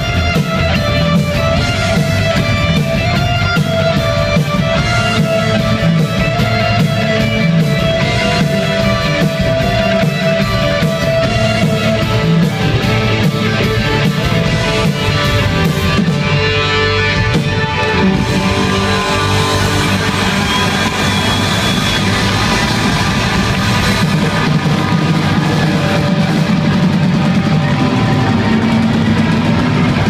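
A live band playing loud rock music on electric guitar, synthesizer and drum kit.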